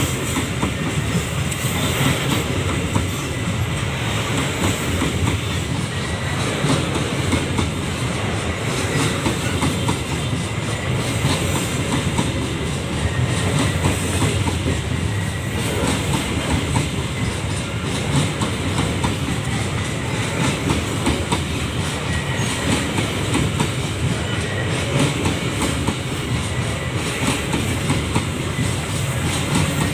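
Babaranjang coal train's wagons rolling steadily past, the wheels clicking over the rail joints in a continuous clickety-clack.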